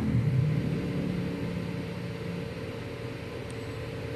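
Steady whirring hum of a desktop PC's cooling fans, with a lower tone that fades away over the first two seconds or so while the whole sound eases slightly quieter.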